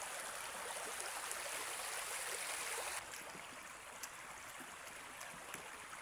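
Steady rushing noise, like running water, that drops suddenly to a fainter hiss about halfway through, with a few light clicks after the drop.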